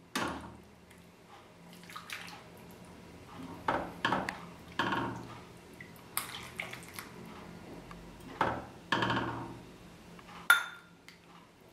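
Metal ladle scooping chicken broth from a stainless steel pot and pouring it into a bowl: scattered clinks of the ladle against the pot and short splashes of broth, with one sharper ringing clink near the end.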